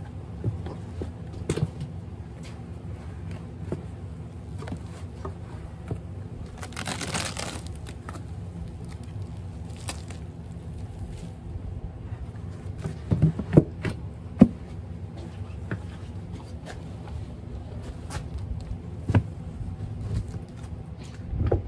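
Wooden beehive frames and boxes being handled, with scrapes and scattered knocks and a quick cluster of sharper knocks about two-thirds of the way through, over a steady low hum.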